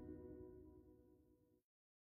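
Outro background music fading out, ending in complete silence about one and a half seconds in.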